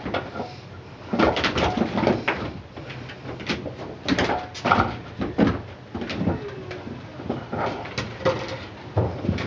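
Irregular knocks, clatters and rattles of a puppy playing among household objects such as a plastic baby gate and pet toys on the floor.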